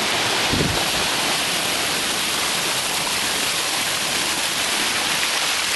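Steady rush of water along a sailboat's hull and bow wave under way, with a brief low thump about half a second in.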